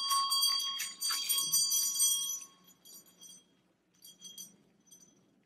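Small bell ringing and jingling, with several high ringing tones and clinks; the ringing fades away after about two and a half seconds, leaving a few light clinks.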